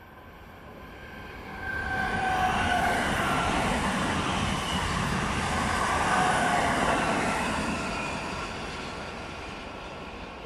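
An ETR 521 'Rock' double-deck electric multiple unit running through the station without stopping. Its noise swells sharply about two seconds in and stays loud for about six seconds, with a pitched whine over the wheel and rail noise, then fades as it moves away.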